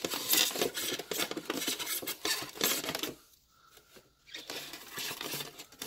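Utility knife blade sawing back and forth through a styrofoam cooler lid: a rough, scratchy scraping of the blade dragging through the foam. It stops for about a second just past halfway, then starts again.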